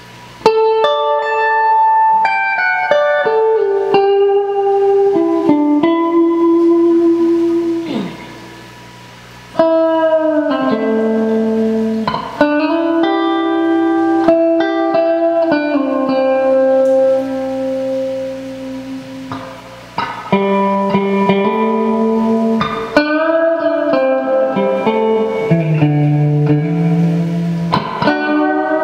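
Electric guitar played through a Giannini True Reverber combo amp: phrases of plucked single notes and chords ringing out, with short pauses about eight and twenty seconds in.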